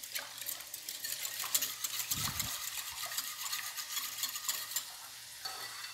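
Metal balloon whisk stirring a thin liquid batter in a bowl: a continuous quick patter of small clicks and swishing as the wires strike the bowl and the liquid.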